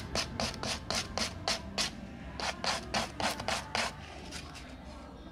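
Sandpaper rubbed back and forth by hand along the edge of an MDF tray, scraping through the satin ribbon glued over it and cutting the fabric away, in quick strokes about five a second that stop about four seconds in.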